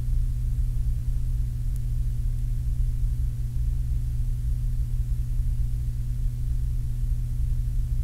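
Steady low hum of several held low tones that do not change, under even cassette tape hiss.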